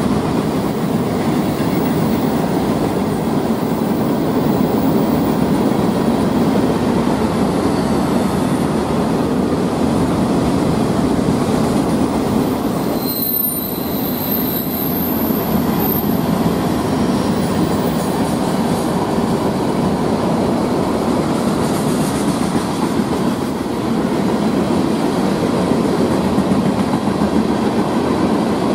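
Freight train cars rolling past: a steady rumble of steel wheels on rail, with a brief high-pitched wheel squeal about halfway through.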